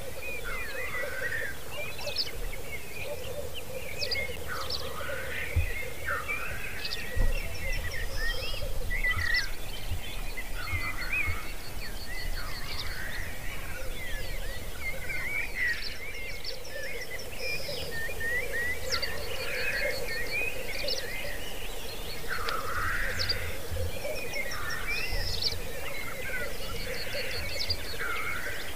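Lekking male black grouse: a steady, continuous bubbling chorus, with sharp hissing calls rising over it every second or two. Short trains of rapid high ticks recur several times.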